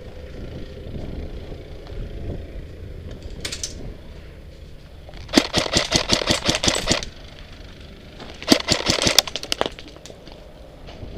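Airsoft electric rifle, a G&G F2000, firing on full auto: a short burst, then two longer bursts of rapid clattering shots, the first about a second and a half long and the second about a second.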